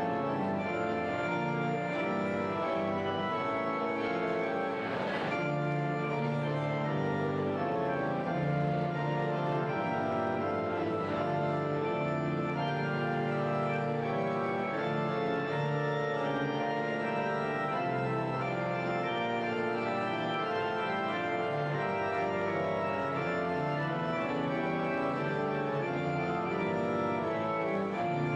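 Organ music: sustained chords that move steadily from one to the next.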